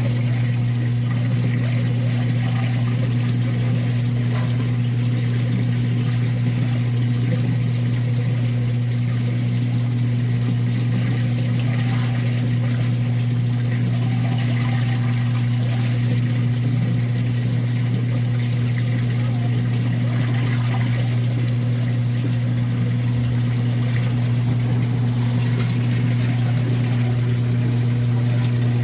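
Steady low mechanical hum, unchanging throughout, under the sound of water running and trickling.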